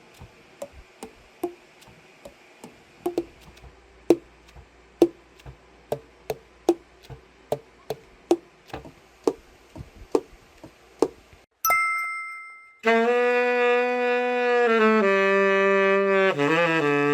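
A run of sharp, irregular clicks, about two a second, then a brief chime. After that a tenor saxophone plays long, steady low notes, each a step lower than the last, as the overhauled Yamaha YTS-62 is play-tested.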